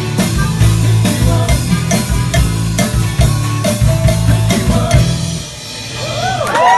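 Rock music with a drum kit keeping a steady beat, stopping about five seconds in. Near the end a crowd starts cheering.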